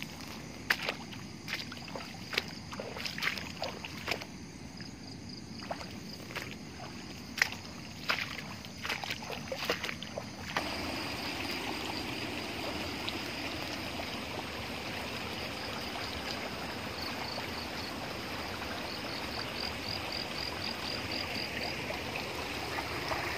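Footsteps brushing and snapping through tall dry grass and undergrowth, a run of sharp rustles and cracks. About ten seconds in, the steady rush of flowing stream water takes over. Faint high chirping comes in quick runs near the end.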